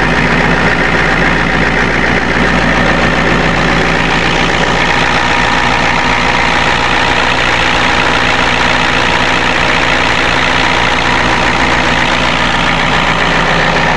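1990 Ford F-250's 7.3-litre IDI naturally aspirated diesel V8 idling steadily, heard close up in the engine bay while it warms up after a cold start.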